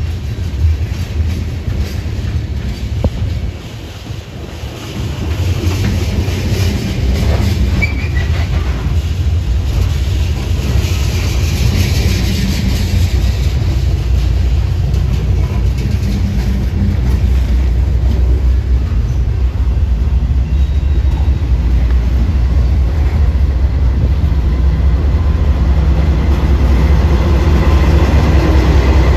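Coal train's aluminum gondola cars rolling past close by, wheels clacking over the rail joints with an occasional brief squeal. The low rumble of a Union Pacific diesel locomotive grows louder toward the end as it draws alongside.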